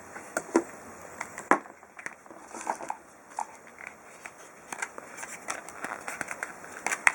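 A clear TPU phone case being handled, giving scattered light clicks, taps and crackles of soft plastic.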